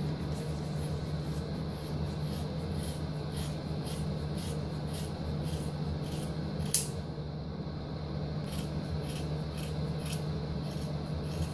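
Scissors snipping through synthetic wig hair: repeated short cuts at about two a second. The loudest snip comes a little past halfway, followed by a pause of over a second before the cutting resumes.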